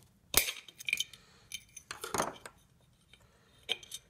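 Sharp metal clinks and scrapes of a small screwdriver working against the cast metal end bell of a fan motor as the bearing retainer is pried loose and lifted out. The strongest clink comes about a third of a second in, with a cluster about two seconds in and one more near the end.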